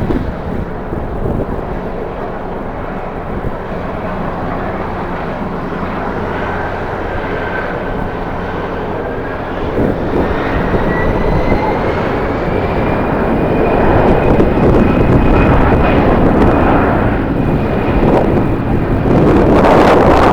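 Jet airliner engines running as the aircraft passes, with a thin whine that rises in pitch around the middle and then holds steady. Gusts of strong wind buffet the microphone throughout.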